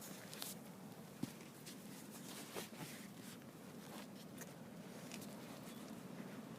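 Faint rustling and scattered small clicks over a low steady background, with one sharper click about a second in.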